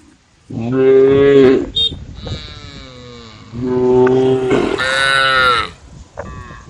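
Cows mooing: several loud, long calls one after another, the last one higher-pitched.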